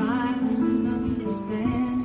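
Slow background music with long held notes that change pitch every half second or so.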